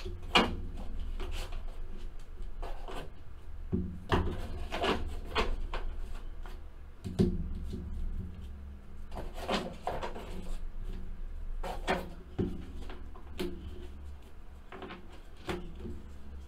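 Cards and boxes being handled on a tabletop: irregular knocks, taps and rubbing, the sharpest knocks about half a second in and about seven seconds in, over a steady low hum.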